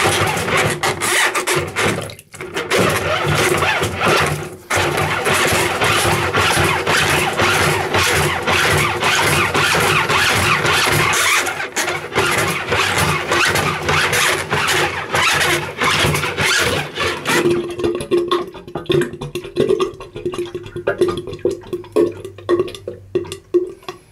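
Handheld drain snake's coiled steel cable spinning and scraping in a blocked basin drain pipe, a dense rapid rattle. After about seventeen seconds the rattle thins and the basin water drains away with a low gurgling hum as the blockage gives.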